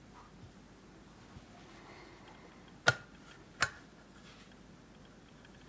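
Two sharp clicks about three quarters of a second apart, the first the louder, from handling the old Esbit folding field stove.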